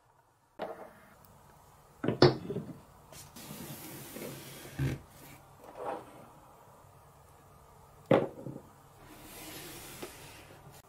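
Wooden marble-run track pieces and wooden building blocks being handled and set in place: several wooden knocks, the loudest about two seconds in, with quieter scraping between them.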